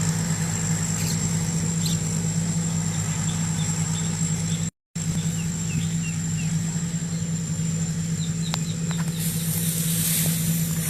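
Combine harvester's diesel engine running steadily, a low drone with a thin high whine over it. The sound cuts out completely for a moment just under five seconds in, and a hiss rises near the end.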